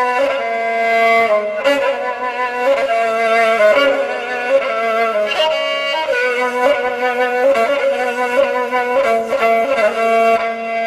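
Violin music: a bowed melody of notes that change about every half second to second, with no percussion.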